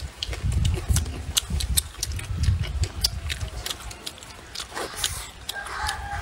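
Close-up chewing and lip-smacking of someone eating, with wet clicks and soft thumps about twice a second. About five and a half seconds in, a steady whistle-like tone starts and holds.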